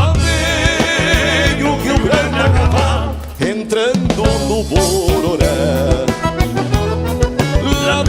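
Instrumental passage of a gaúcho regional song: a band with a drum kit keeping a steady beat under a wavering melodic lead.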